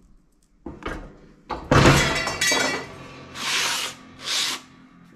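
Foot-operated guillotine shearing an aluminium number-plate sheet: a knock about a second in, then a loud sharp cut with a metallic ring. It is followed by two shorter scraping sounds as the cut plate is slid across the steel bed.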